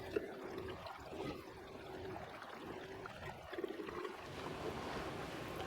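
Gasoline trickling faintly as it is poured into a small engine's fuel tank.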